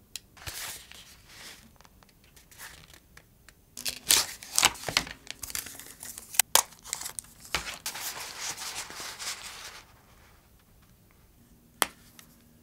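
Chocolate bar packaging being handled and unwrapped: the paper wrapper crinkles and rustles, loudest and densest from about four to ten seconds in. Near the end there is a single sharp snap as a piece of dark chocolate is broken off.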